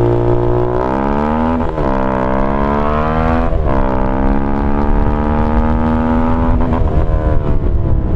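Keeway RKF 125 single-cylinder four-stroke through a GPR Deeptone exhaust with the dB killer removed, accelerating through the gears. The pitch climbs, dips at two upshifts, rises again for a few seconds, then eases off near the end.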